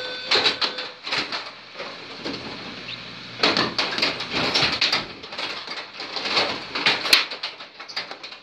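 Carrom Super Stick dome hockey table in play: rods pushed and twisted, plastic players and puck clacking in a rapid, irregular clatter.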